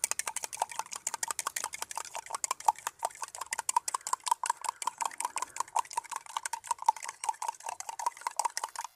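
A spoon beating eggs in a stainless-steel tumbler: rapid, steady clinking of metal on metal, several strikes a second, with the cup giving a ringing metallic note.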